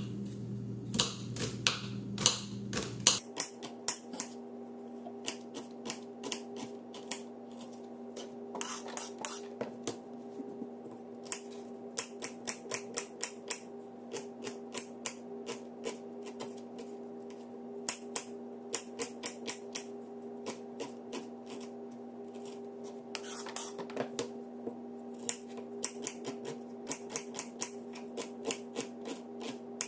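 Kitchen knife slicing red onions on a plastic cutting board: irregular runs of sharp taps, a few a second, as the blade hits the board. A steady low hum runs underneath, and a deeper part of it stops about three seconds in.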